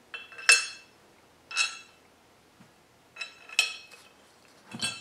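Metal mounting-bracket plates and bolts clinking against each other as they are handled: about five sharp, ringing metal clinks, the loudest about half a second in.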